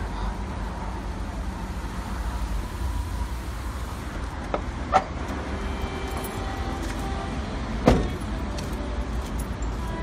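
Van engine idling with a steady low hum, started by an aftermarket push-button start. Two short sharp knocks stand out, about five and eight seconds in, the second the louder.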